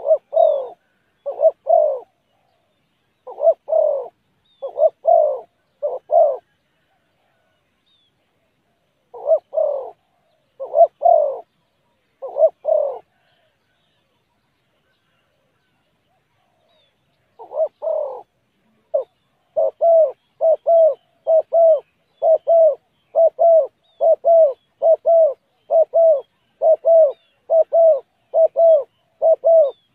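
Spotted dove cooing: deep coos in short phrases with pauses of a few seconds between them, then for the last third a fast, unbroken run of short coos at about one and a half a second.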